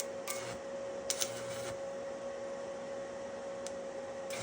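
A steady machine hum with one constant tone from a running stick welder, broken by a few short crackles about a second in and near the end.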